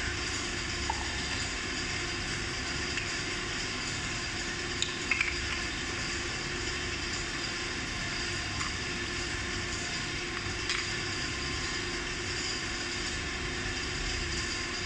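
Steady workshop background hum, a low rumble with a few constant tones. Over it come light clicks and taps of small scooter parts and screws being handled: one about a second in, a short cluster around five seconds, another near eleven seconds.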